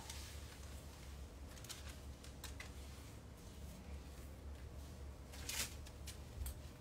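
Faint rustling of clothes and a few light clicks of hangers, several times, as someone goes through a closet, over a steady low hum.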